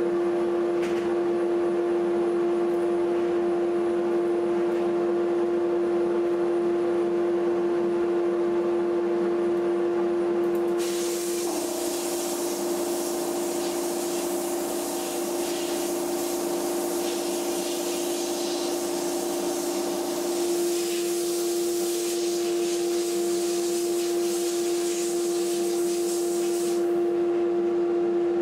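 Air blow gun with a siphon bottle blasting slag abrasive at a rusty hammer head inside a blast cabinet: a loud hiss of air and grit starts sharply about a third of the way in and cuts off near the end. A steady motor hum runs underneath the whole time, and its tone shifts while the air flows.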